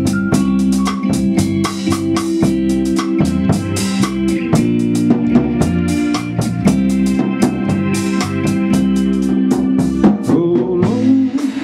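Small live band playing an instrumental passage: organ holding sustained chords under electric guitar, with drums keeping time on steady cymbal strokes.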